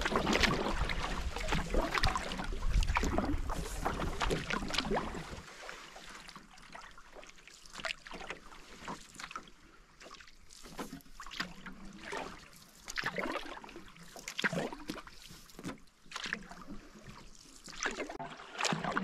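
Canoe paddle strokes on calm lake water: small splashes and drips about once a second. The first five seconds are louder, with more water noise and a low wind rumble on the microphone.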